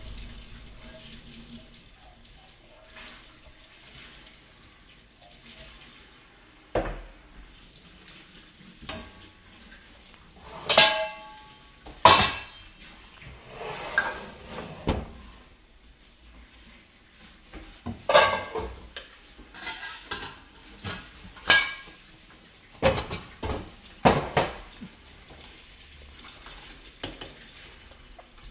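Scattered clinks and knocks of hard objects being handled, a dozen or so spread irregularly over the middle of the stretch, some with a short ring like dishes or cutlery.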